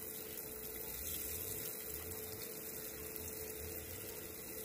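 A faint steady hum, one constant tone over a soft background hiss, with some low rumbling now and then.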